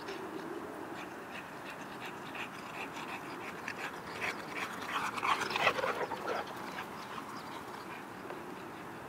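Two dogs, a boxer and a red spitz-type dog, panting and scuffling as they chase each other in play, with rapid short sounds throughout and a louder burst of dog noise about five to six seconds in.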